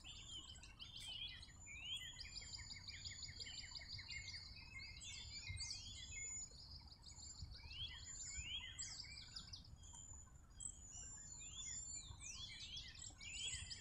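Several small birds chirping and trilling, many quick overlapping calls and short falling whistles, over a faint low rumble.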